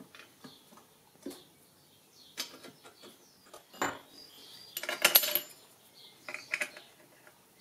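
Metal clinks and clatter from a circular saw blade and its steel clamping parts being handled on a saw-blade sharpening machine. Scattered knocks, with the loudest burst of ringing clinks about five seconds in.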